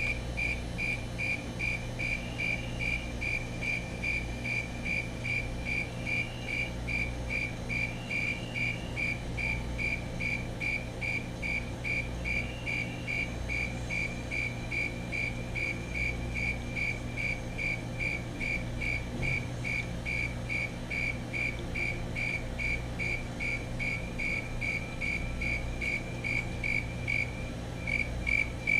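Male snowy tree cricket (Oecanthus fultoni) calling by rubbing its raised forewings: a steady train of short, evenly spaced high-pitched chirps, roughly two to three a second, with a brief pause near the end.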